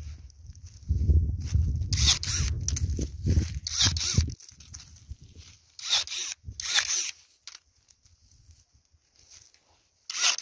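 Wind buffeting the microphone for about the first four seconds, along with short, sharp rustling scrapes as the phone is handled and brushes against clothing. A few more such scrapes come after, the last near the end.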